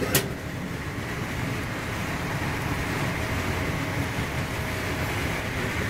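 Passenger coach of a High Speed Train running at speed, heard from inside: a steady rumble of wheels on rail and passing air, with one sharp click about a quarter second in.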